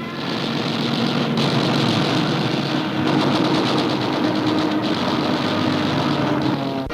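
Aircraft engines running in a steady, noisy drone on an old film soundtrack, with a fast, even pulsing in the middle; it cuts off abruptly at the end.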